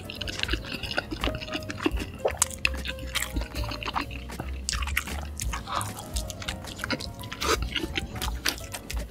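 Background music over close-up wet, sticky eating sounds: many small clicks and squelches as a cheese-sauce-dipped burger is chewed and pulled apart.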